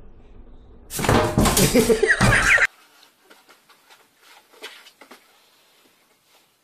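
A cat's loud, harsh cry lasting under two seconds that cuts off suddenly, followed by a few faint light clicks.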